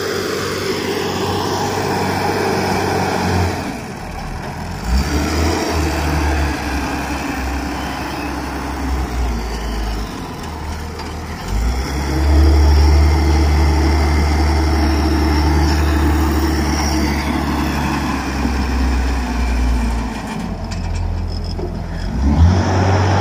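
Caterpillar wheel loader's diesel engine running loud as it scoops and dumps sand. The engine works harder, rising and falling; its deepest, heaviest stretch begins about halfway through and lasts several seconds.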